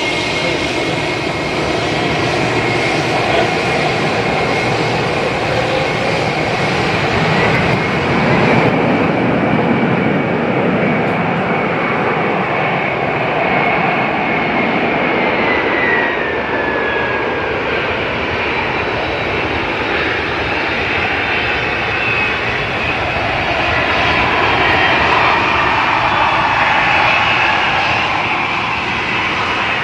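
Jet airliner engines running loud and steady, with a high whine that glides down in pitch about halfway through as the aircraft passes.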